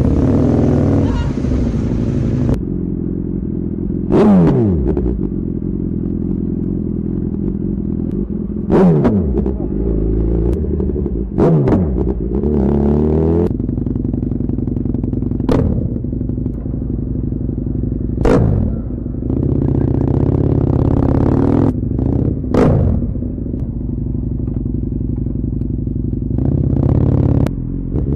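Motorcycle engine running steadily at idle, blipped sharply about six times, each rev rising suddenly and falling quickly back to idle.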